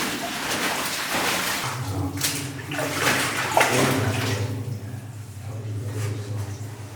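Footsteps wading and sloshing through shallow water in a mine tunnel, with a steady low hum starting about two seconds in.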